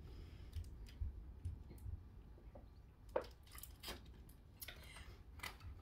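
Faint drinking from a plastic water bottle: swallows and crinkles of the thin plastic, with scattered soft clicks and thumps and two sharper clicks a little past halfway.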